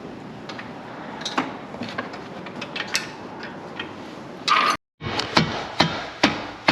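Metal tools clinking and tapping, then, after a sudden break about five seconds in, a hammer striking metal in steady blows, a bit over two a second.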